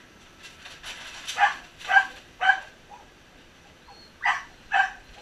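Small dog barking in short, high yaps: three about half a second apart after about a second, then two more near the end.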